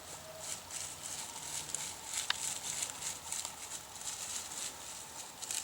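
Irregular light crackling and rustling, like small steps or movement in dry leaves and litter, with no steady rhythm.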